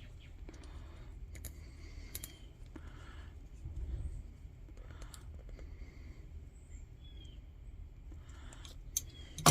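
Small metal lantern parts clicking and tapping as they are handled, with a soft thud about four seconds in and a sharp metallic clink at the very end.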